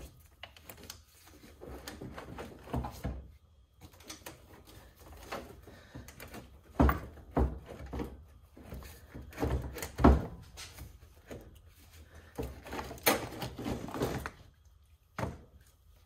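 A heavy car battery being shifted and lifted out of its tray: scattered knocks and clunks, the loudest about 7 and 10 seconds in.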